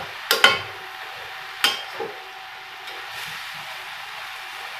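A spatula stirring chopped leafy greens in a stainless steel kadhai, clinking and scraping against the pan four times in the first two seconds, over a faint steady sizzle from the pan.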